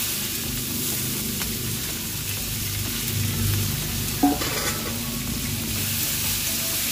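Sliced onions frying in hot oil in a karahi, a steady sizzle as they go into the pan and are stirred. A brief metallic clank comes about four seconds in.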